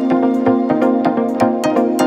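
Background electronic music: held synth chords over a steady, regular beat.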